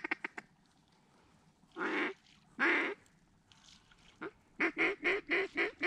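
Loud mallard-style quacking: a fast chatter at the start, two long drawn-out quacks about two seconds in, then a string of six quick quacks at about four a second, the cadence a hunter's duck call uses to work circling mallards.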